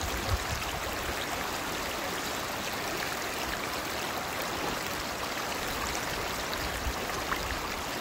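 Shallow creek water running over stones: a steady rush.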